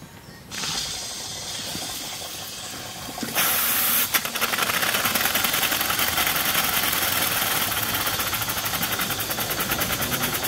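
Cotswold Heritage Perseus model steam engine starting on steam. Steam hisses through it at first, louder after about three seconds, then about four seconds in the engine starts running, its exhaust beating fast and evenly.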